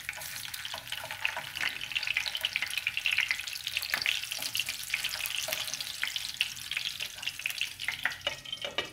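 Pork sausages sizzling and crackling in hot oil in a frying pan while they are turned with chopsticks.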